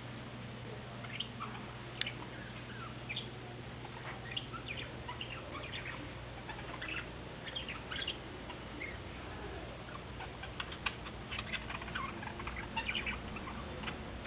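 Small cage birds chirping in a stream of short, high calls, many overlapping, over a low steady hum.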